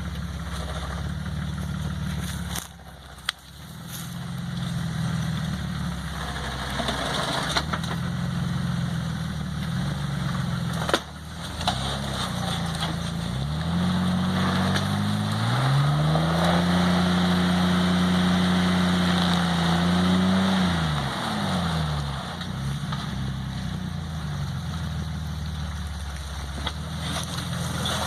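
Jeep Wrangler engine running at low revs off-road. About halfway through it revs up, holds high revs for several seconds and then drops back. There is a brief dip about three seconds in and a sharp knock near the middle.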